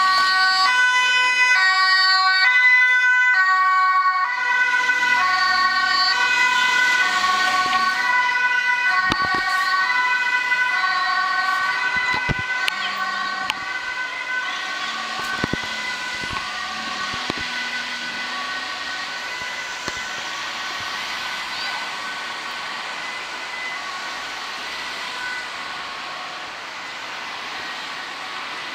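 Ambulance two-tone siren on an urgent run, switching between a high and a low note about twice a second. It is loud at first and fades steadily as the ambulance drives away, leaving road traffic noise.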